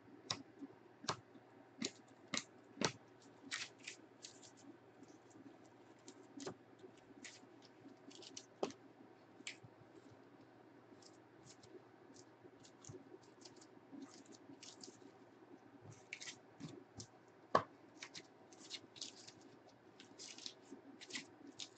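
Trading cards handled and sorted by hand: scattered light clicks, taps and scratchy slides of cards against each other and the table, with one sharper tap late on.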